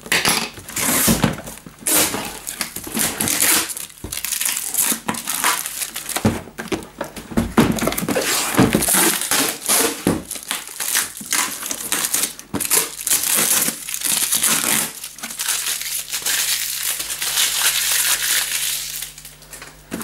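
Clear plastic wrap and packing tape crinkling and tearing as it is pulled off cardboard boxes, in irregular crackling bursts, with a few dull knocks of the boxes being moved.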